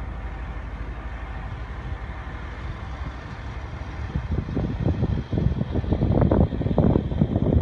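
Scania P320 truck's five-cylinder diesel engine idling steadily. From about halfway, wind gusts on the microphone grow louder over it.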